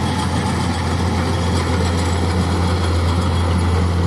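Kubota DC-105X combine harvester cutting and threshing rice: a steady low diesel engine drone under load, with the continuous rushing noise of the threshing drum and straw blown out of the back.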